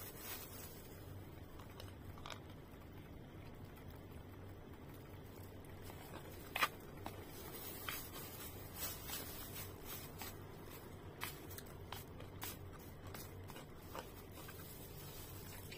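Close-up eating sounds: chewing and a white plastic spoon scraping and tapping in the food, heard as scattered short clicks and scrapes, the loudest about six and a half seconds in, over a faint low hum.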